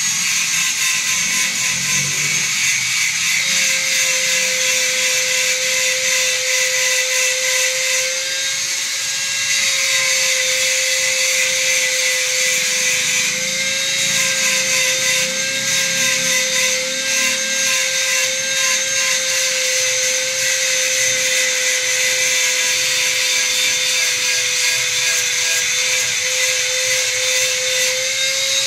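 Handheld electric power tool running steadily against the wood of a counter cabinet. A constant motor whine sits under a loud rasping noise.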